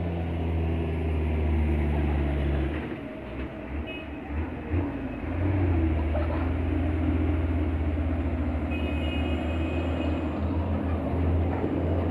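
Heavy diesel truck engines running on the climb, a deep steady drone that eases off about three seconds in and builds again from about five and a half seconds as trucks pass close by.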